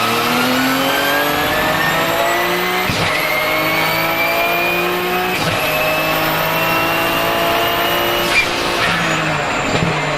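Porsche 997 GT2 RSR's 3.9-litre twin-turbo flat-six accelerating hard, heard from on board. The revs climb and drop at quick sequential-gearbox upshifts about three and five and a half seconds in, with a high turbo whistle rising alongside. Near the end the throttle closes with a sharp pop and the engine note falls.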